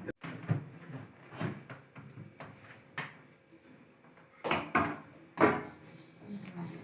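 A handful of separate knocks and clicks from something being handled, two louder ones about four and a half and five and a half seconds in.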